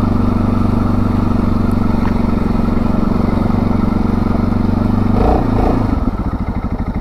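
Segway Snarler AT6 SX 570 ATV's 570cc single-cylinder engine running at a steady low speed as the quad rolls along. About five seconds in it drops back to a slower, evenly pulsing beat.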